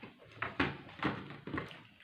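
Close-up eating sounds of pani puri: four short, sudden mouth noises of crunching and slurping, about half a second apart.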